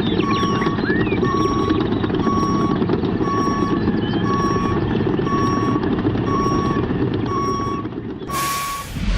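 Vehicle reversing alarm beeping about once a second over a steady engine rumble. A short whoosh comes near the end.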